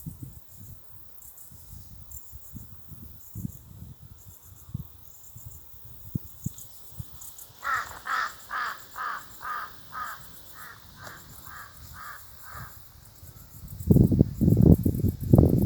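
A bird calls about a dozen times in quick succession, a little over two calls a second, fading as the run goes on. A steady high insect chorus runs underneath. Near the end a loud low rumble comes in.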